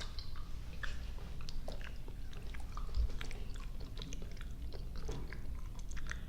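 Close-miked chewing of soft, sticky gummy and marshmallow candy: wet smacks and small clicks come irregularly throughout, with a soft low thump about three seconds in.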